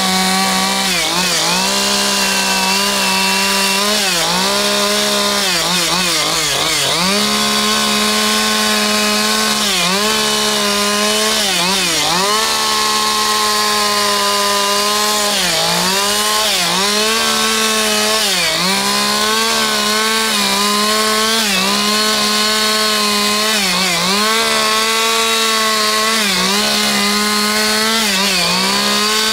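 Two-stroke chainsaw running at high revs while carving wood, its engine pitch sagging briefly every second or two as the chain is pressed into the wood, then picking back up.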